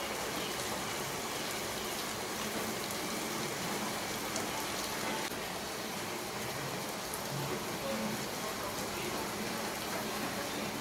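Steady rain: an even hiss of drops falling on leaves and paving.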